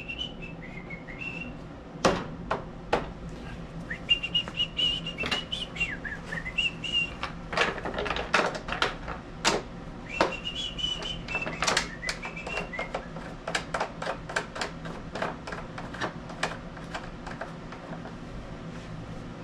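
A man whistling a wavering tune in three short phrases, over frequent sharp clicks and knocks of hand work on the mower.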